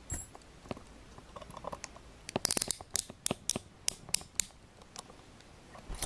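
Swing arm of a pair of Szco Scorpion steel handcuffs ratcheting through the cuff: a quick run of sharp metallic clicks about two and a half seconds in, then single clicks at uneven spacing.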